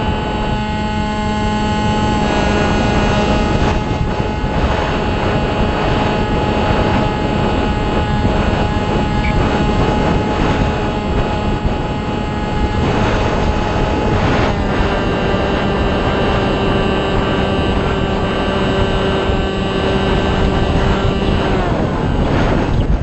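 Onboard sound of a Multiplex Shark RC model plane in flight: the motor and propeller whine steadily over heavy wind rush on the camera. The whine changes pitch several times as the throttle is moved.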